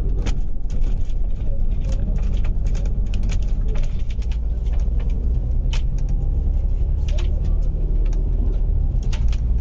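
Double-decker bus driving along, heard from the upper deck: a steady low engine and road drone with frequent light rattles and clicks from the bus body and fittings.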